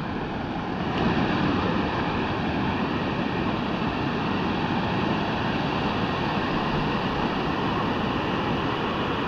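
River water rushing over a low rock ledge in shallow rapids, a steady noise that grows a little louder about a second in.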